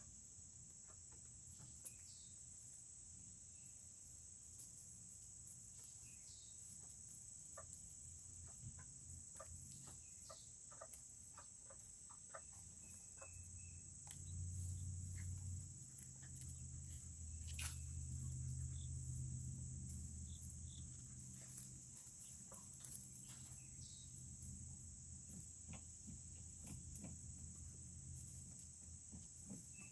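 Steady high chirring of crickets under scattered light clicks and a few brief soft chirps from small Serama chickens. A low rumble swells for several seconds in the middle.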